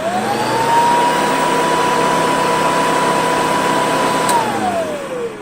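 1995 Hoover Commercial C1125 upright vacuum cleaner's motor coming up to speed in a rising whine, running steadily and very quiet. It is switched off with a click about four seconds in and spins down in a falling whine.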